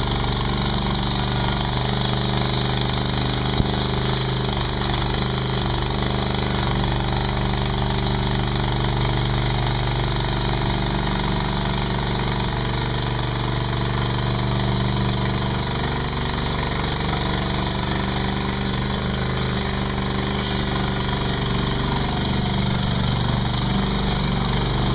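Mini skid steer's engine running steadily at a constant speed, with a single brief click about three and a half seconds in.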